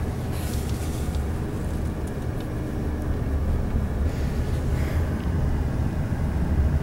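Car interior road noise: a steady low rumble of the engine and tyres as the car drives along, heard from inside the cabin.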